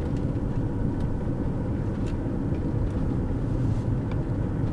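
Steady low road and engine rumble of a car driving along a paved road, heard from inside the cabin.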